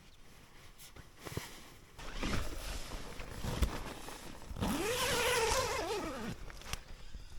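Tent door zip being pulled open in one long stroke, its pitch rising then falling as the slider runs round the curve of the door, after a couple of seconds of rustling fabric.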